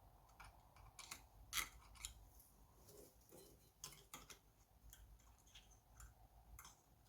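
Faint, scattered small clicks and taps of hand tools working small engine parts loose, with one louder click about a second and a half in.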